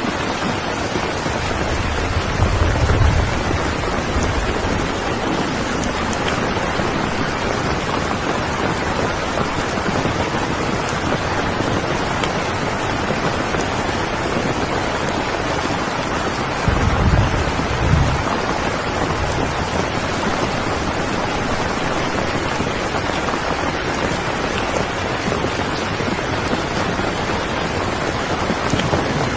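Steady heavy rain, with two low rolls of thunder: one about two to four seconds in and another around seventeen seconds in.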